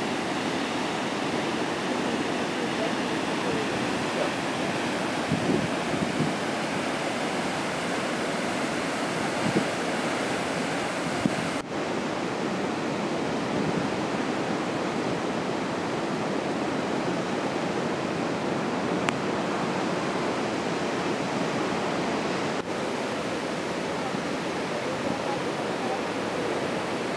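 Steady rushing of Victoria Falls, the Zambezi River's water pouring over the gorge edge at dry-season low flow. Two brief dips interrupt it, about a third and two thirds of the way through.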